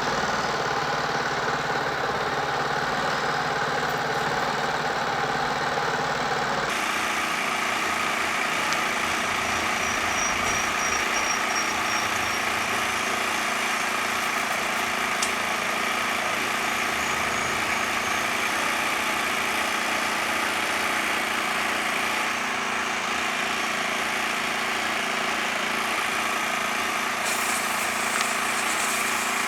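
A steady mechanical drone, like a motor or engine running, with an abrupt change in tone about seven seconds in.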